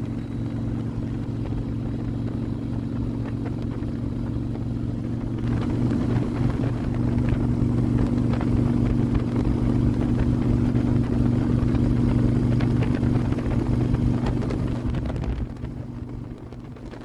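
Harley-Davidson touring motorcycle's V-twin engine running steadily at cruising speed, with wind and road noise. The engine and the wind grow louder about five seconds in and ease off near the end.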